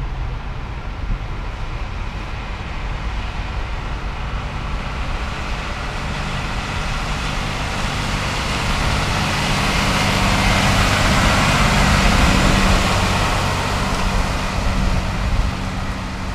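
A heavy truck approaching on a wet road, its engine hum and tyre hiss growing louder to a peak about twelve seconds in, then easing off.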